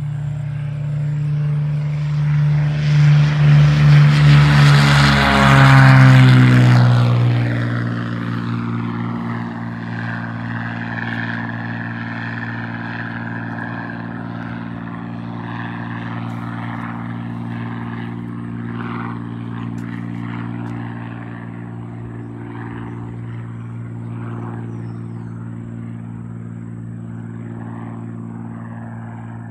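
Single-engine propeller airplane (a Lancair Columbia 300) with its engine running. A few seconds in, the sound swells loudly and drops in pitch, then settles into a steady drone.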